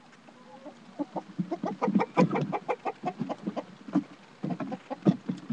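Domestic chickens clucking close up: a quick run of short clucks, loudest about two seconds in and again near the end.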